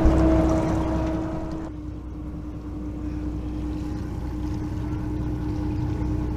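The small car ferry MV Glenachulish's engine running with a steady hum and rumble. About two seconds in it turns quieter and more muffled, as heard from inside the vehicle cab.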